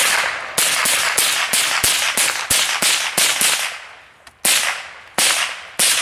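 .22 semi-automatic rifles firing rapidly: about a dozen sharp shots in quick succession, roughly three a second, then three more spaced-out shots in the last two seconds.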